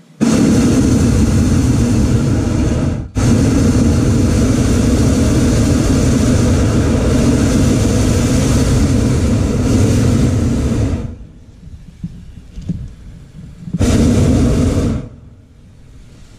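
Hot air balloon's propane burner firing: a loud, steady roar that starts abruptly, cuts out for a moment about three seconds in, runs on for about eight seconds more, then after a short pause gives one more blast of about a second.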